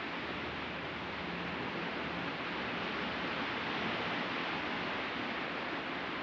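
Sea surf washing onto the beach: a steady rush of breaking waves that swells slightly about halfway through.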